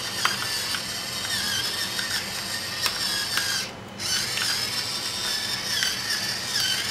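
Electric pepper mill grinding peppercorns: a steady motor whirr with a wavering pitch, stopping briefly about halfway through and then running again.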